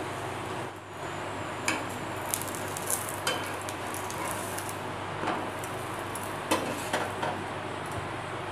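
Stuffed paratha frying in oil on a hot tawa, a steady sizzle, with several short clicks and scrapes of a steel spatula against the pan.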